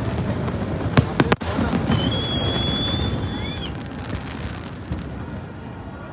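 Fireworks exploding: a quick cluster of three sharp bangs about a second in, then a steady high whistle lasting about a second and a half, over steady background noise that slowly fades.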